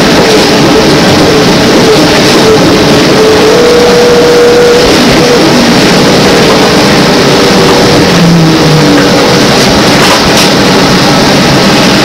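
Inside a moving GM New Look trolleybus with Brown Boveri electric propulsion: steady road and body noise, with a faint whine from the electric drive that shifts in pitch now and then.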